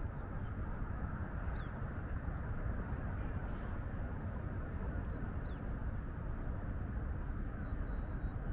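Steady outdoor ambience, a low rumbling hiss, with a few faint, short high bird chirps now and then.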